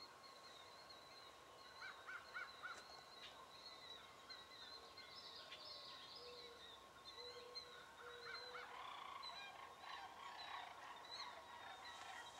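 Wild turkeys, a flock of jakes, calling softly while they feed: a quick run of short notes about two seconds in and another near eight seconds, with scattered lower, softer calls in between and toward the end.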